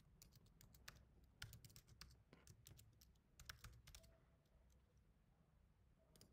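Faint computer keyboard typing: a quick, uneven run of key clicks that stops about four seconds in.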